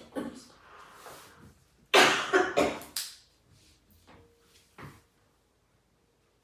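A woman with a cold coughing in fits: a single cough at the start, a cluster of three or four hard coughs about two seconds in, then single coughs near three and five seconds.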